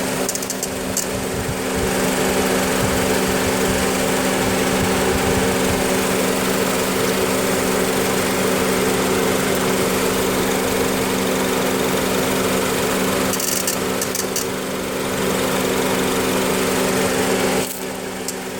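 2006 Honda Civic LX running in Drive on the brakes with the A/C on, making a loud, steady drone made of several held tones; the level drops near the end. The owner calls it a very strange sound, and the mechanic puts it down to the A/C compressor.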